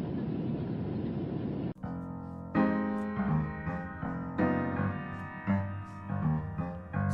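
Steady rumble of airliner cabin noise that cuts off abruptly about two seconds in, followed by piano music.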